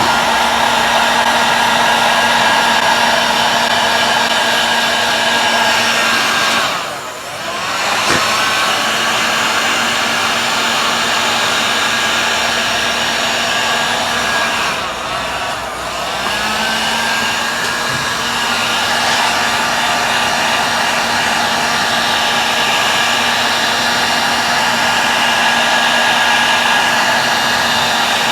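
Heat gun running with a steady whine and blowing hiss as it shrinks heat-shrink wrap over bike cables. Twice, about seven and fifteen seconds in, the whine dips and winds back up.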